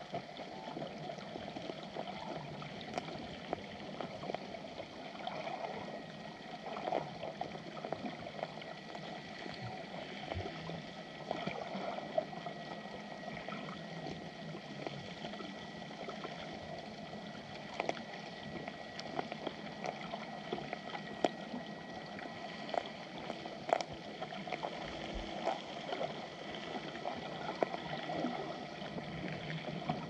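Underwater ambience: a steady, muffled water noise with scattered sharp clicks and cracks, and a faint steady high whine.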